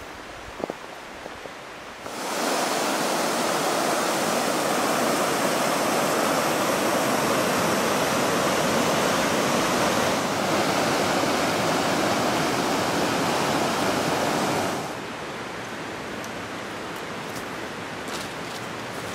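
Rushing river water, a loud steady roar that starts abruptly about two seconds in and cuts off suddenly near fifteen seconds, with fainter rushing water and a few light clicks before and after.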